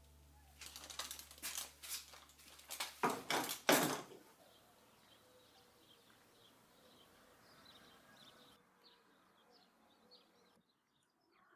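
A quick, irregular run of sharp knocks and clicks for about three seconds, followed by faint birds chirping.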